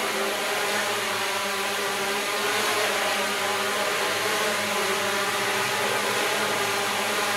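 Hexacopter drone's electric motors and propellers humming steadily as it hovers, several even tones over a hiss.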